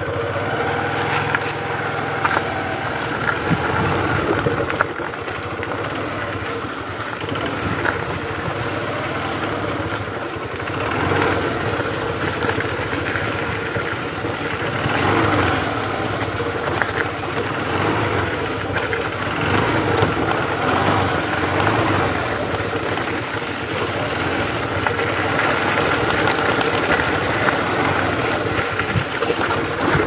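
A vehicle travelling along a rough dirt track: a steady engine and rumble noise, with a few short high chirps above it.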